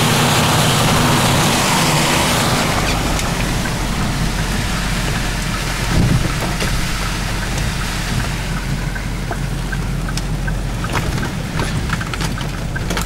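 Car driving in rain, heard from inside: a steady low engine and tyre hum on the wet road under a hiss of rain and wind. The hiss is loud for the first couple of seconds, then quieter, and scattered light ticks come near the end.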